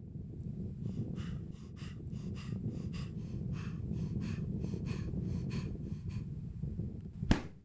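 A person panting hard in short rasping breaths, about three a second, over a low steady rumble, then a car boot lid slammed shut near the end, after which the sound cuts off.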